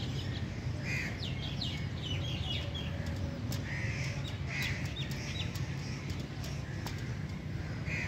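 Crows cawing several times, with quicker high chirps of other birds in between, over a steady low hum.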